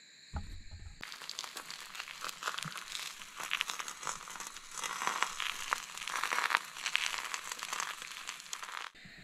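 Eggs frying in oil in a pan on a portable gas camp stove, sizzling and crackling steadily. A short low thump comes just before the sizzling starts about a second in.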